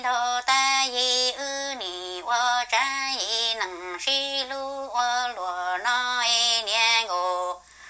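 A woman singing solo in Hmong, unaccompanied, holding each syllable on a steady pitch with short slides between notes; the voice pauses briefly near the end.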